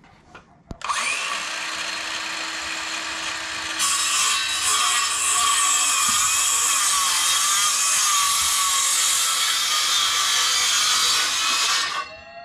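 Battery-powered saw cutting through a 2x4. It starts about a second in, gets louder about four seconds in, runs steadily, and cuts off suddenly near the end.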